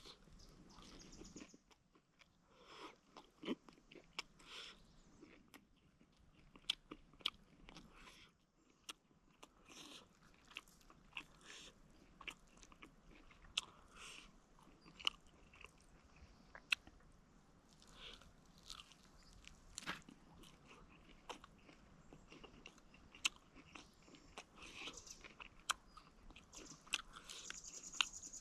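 A person biting and chewing tandoori chicken close to the microphone, with many irregular sharp crunching clicks.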